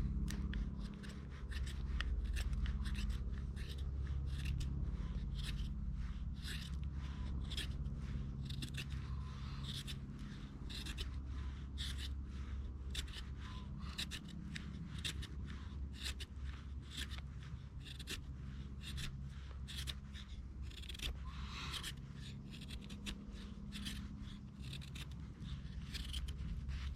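Knife blade shaving thin curls off a stick of fatwood, steady repeated scraping strokes at about two a second, making tinder for a fire.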